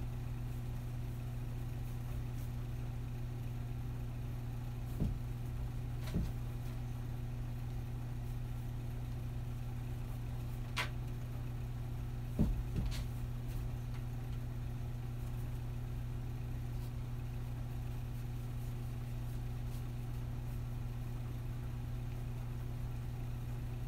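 A steady low hum, with a few brief faint taps scattered through it.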